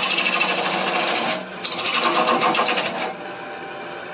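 Wood lathe turning a wooden blank while a hand-held turning tool cuts into it: a loud, fast-pulsing scraping as shavings come off. It breaks briefly about one and a half seconds in, then stops about three seconds in as the tool is lifted, leaving the lathe running more quietly.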